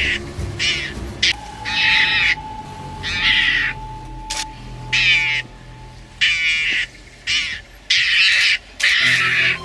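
A mongoose cornered by lions calling out in short, high-pitched cries, about one a second, in defiance.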